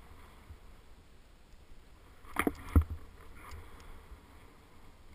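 Skier or snowboarder sliding through deep powder snow: a soft, steady swish of snow under the rider, with two sharp thumps a little after halfway.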